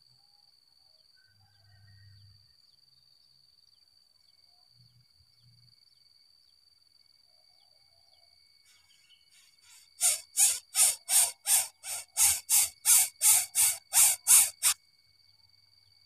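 A greater coucal at the nest giving a rapid series of about thirteen harsh, hissing calls, roughly three a second, starting about ten seconds in and stopping abruptly; a faint steady high insect tone runs underneath.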